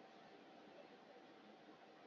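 Near silence: faint room tone and recording hiss with a faint steady hum.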